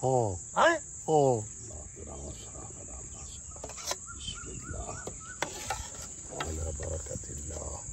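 Insects shrilling in a steady high drone. A bird caws three times in the first second and a half. Later come a few faint clinks of a metal ladle on a steel plate.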